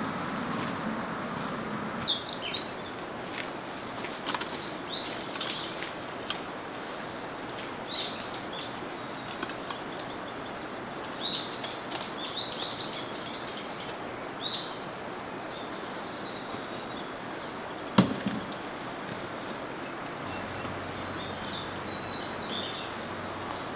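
Small birds chirping and trilling in short repeated phrases over steady outdoor background noise, with one sharp knock about eighteen seconds in.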